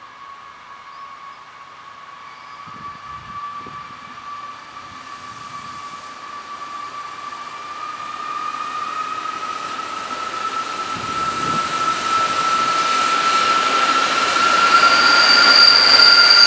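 A diesel railcar hauling passenger coaches approaches and passes close by, growing steadily louder. A steady high whine rises slowly in pitch, and thin high-pitched wheel squeals join near the end.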